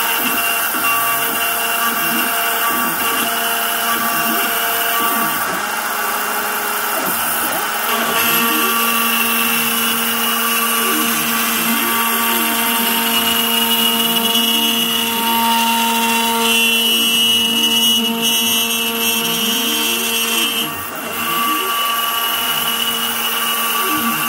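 Inventables CNC router's spindle running steadily with a high whine as its end mill cuts a bottle-opener profile into a wooden board, with tones that glide up and down over and over as the machine moves along the cut.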